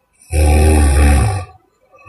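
A sleeping woman snoring: one loud, low-pitched snore lasting about a second.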